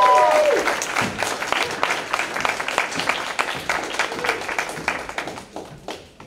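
Audience applause: a few whoops die out in the first moment, and the clapping then thins and fades toward the end.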